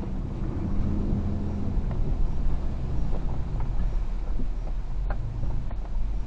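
4WD vehicle engine and road noise, a steady low rumble, with a few faint clicks about five seconds in.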